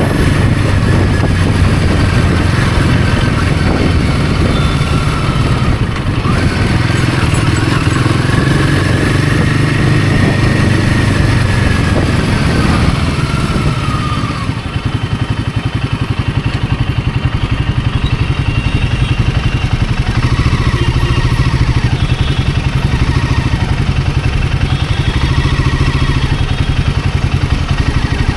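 Royal Enfield Himalayan 450's single-cylinder engine running under way on the road, a steady note under loud road and wind noise, dipping briefly about halfway through.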